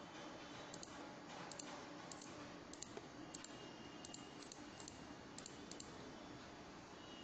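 Faint, irregular clicks of typing on a smartphone's on-screen keyboard, a dozen or more key taps with short uneven gaps between them.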